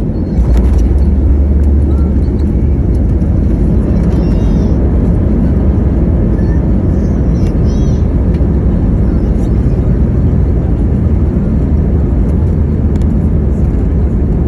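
Cabin noise of an Airbus A320neo heard from a seat near its CFM LEAP-1A engine: a steady heavy rumble that steps up suddenly about half a second in and holds, with faint rattles and clicks over it.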